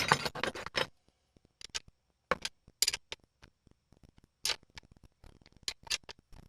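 Metal clicks and light scrapes from hand work on a McCulloch 3516 chainsaw's bar and chain while its chain tension is set. A dense cluster comes in the first second, then scattered single clicks.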